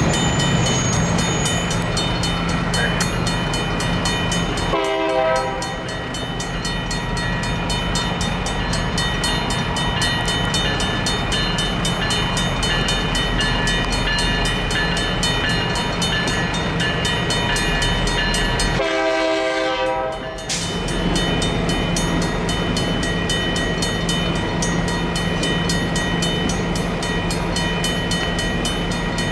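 A train passes a grade crossing with a steady low rumble while the crossing signal's bell rings in fast, regular strokes. A train horn sounds briefly twice, about five seconds in and again near twenty seconds.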